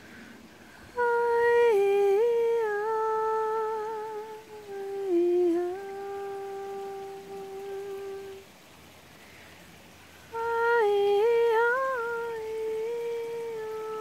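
A voice humming a slow, wordless melody in long held notes, in two phrases with a short pause between them; the second phrase starts about ten seconds in.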